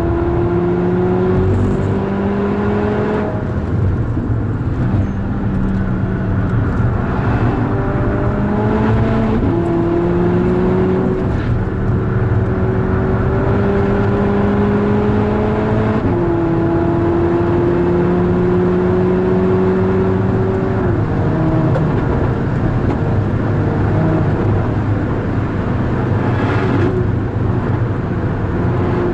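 VW Golf 6R's turbocharged four-cylinder engine pulling hard on track, its pitch climbing steadily and dropping back at each of several upshifts, with heavy road and wind noise.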